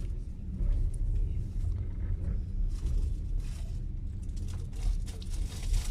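Passenger train's steady low rumble heard from on board, with a few brief hissing bursts around the middle and near the end.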